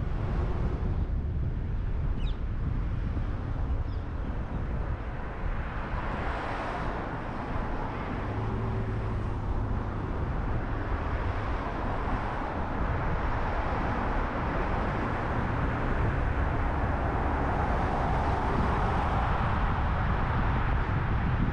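Car driving on a city road: steady tyre and wind noise, a little louder in the second half.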